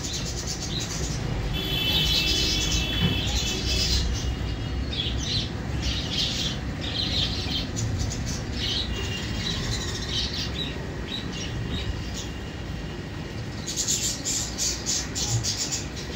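Small birds chirping in many short bursts, with longer calls about two seconds in and about eight seconds in, over a steady low hum.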